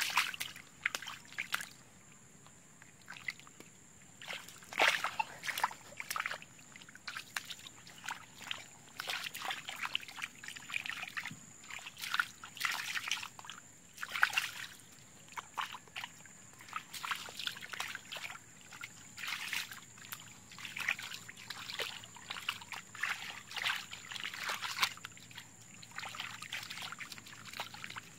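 Hands splashing and sloshing through shallow muddy water in irregular bursts, groping in the mud for fish by hand.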